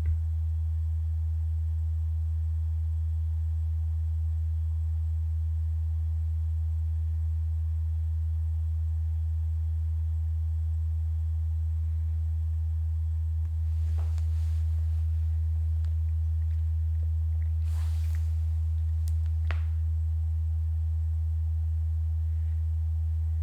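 A steady low hum runs throughout, with a few faint short clicks and scrapes partway through from screws being driven into a sheet-metal furnace case with a ratcheting screwdriver.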